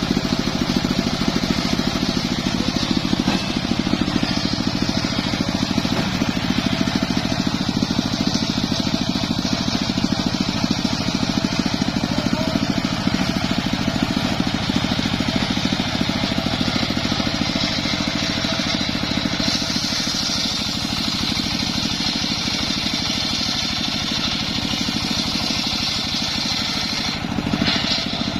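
Engine of a homemade circular sawmill running steadily, driving the saw blade. A higher hiss joins about two-thirds of the way through.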